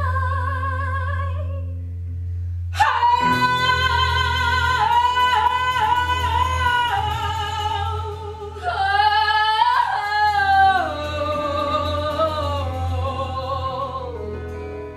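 Women singing live with a wide vibrato and long held notes. A loud new phrase comes in about three seconds in, and another near the middle opens with rising slides, over a steady low note underneath.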